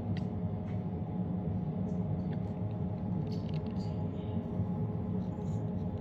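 Steady hum of a small electric motor, with a few faint light clicks of tools.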